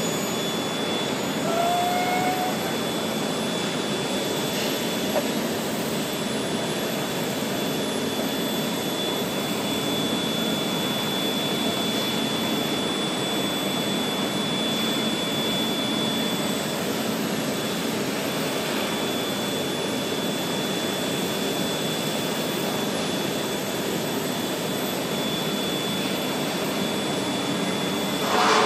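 Steady roar of a biomass power plant's bubbling fluidized bed boiler furnace in operation, with a constant high whine running through it and a brief louder rush near the end.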